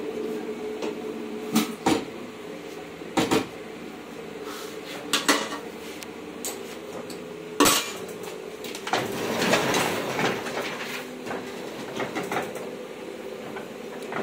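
Small sheet-fed offset printing press (Hamada 700) running with a steady hum, with irregular sharp metallic clacks and a stretch of rattling clatter from its sheet-handling parts.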